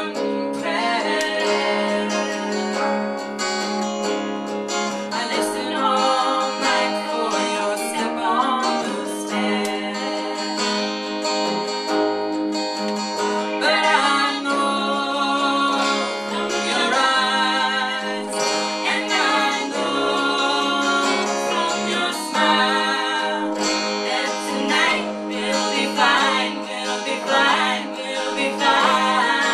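Live folk band playing a song: strummed acoustic guitar under several voices singing together.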